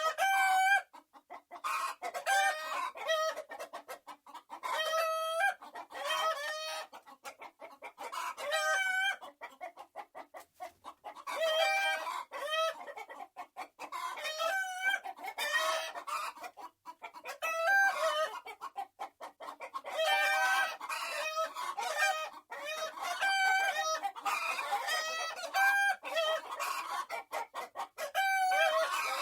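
A flock of hens clucking and cackling, one short call after another in clusters every second or two.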